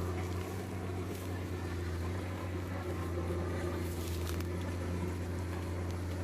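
Komatsu PC200 excavator's diesel engine running at a steady speed, with a few faint knocks and clanks around a second in and again about four seconds in.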